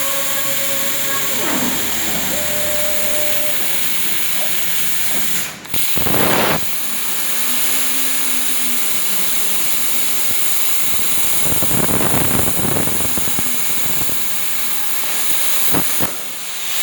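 Plasma cutter cutting holes in steel plate: a loud, steady hiss of air and arc. The arc cuts out briefly about five and a half seconds in, restarts with a louder burst, and dips again near the end.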